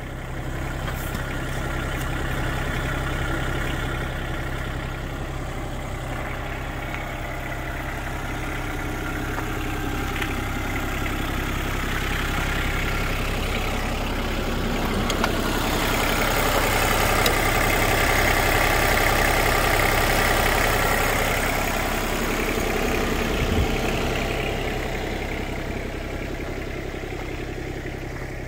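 Diesel engine of a 2016 Cat 301.7D mini excavator idling steadily, louder for a while in the middle when heard close to the rear engine cover.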